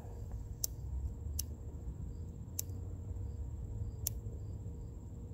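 Low wind noise on the microphone, with four faint sharp clicks spread through it.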